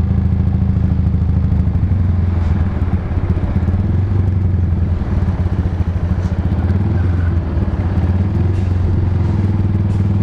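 Motorcycle with a loud aftermarket exhaust (blayer) running at a steady cruising speed, its engine a constant low drone with a brief slight dip about halfway through.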